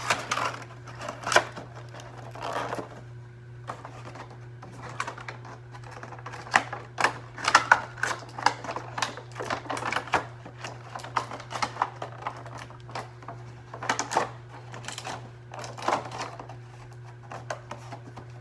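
An action figure's plastic packaging tray and cardboard box being handled and fitted back together: irregular clicks, taps and crinkles, some in quick clusters, the sharpest about a second in and around seven seconds in.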